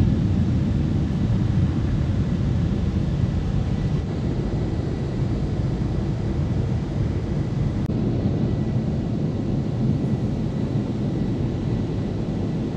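The robot car wash's four drying blowers running, a deep, steady rush of air heard from inside the car's cabin, with a faint steady whine above it.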